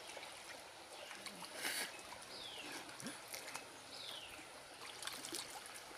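Faint water trickling and lapping, with two short falling whistles from a bird about two and four seconds in.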